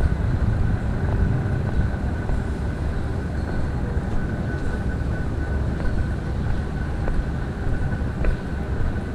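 City street ambience: a steady low rumble with a thin, steady high-pitched hum running through it.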